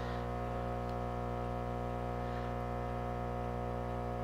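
Hot air rework station running, its handpiece blower giving a steady hum of several constant tones.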